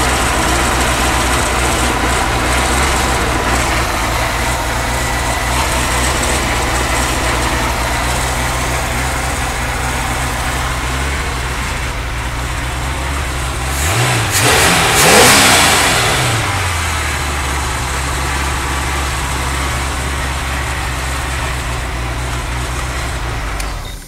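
Glastron-Carlson CVX23 boat's engine idling steadily on its own fuel on its first run after fuel-system repairs. It is revved briefly about halfway through, rising and falling in pitch, then settles back to idle and is shut off at the end.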